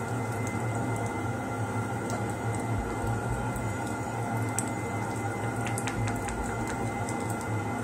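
A steady hum, with a few faint sharp clicks and scrapes about halfway through as an acrylic custom impression tray is worked by hand with a small tool.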